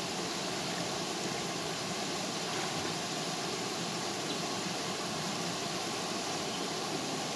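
Steady rushing noise of a small waterfall pouring into a stream pool.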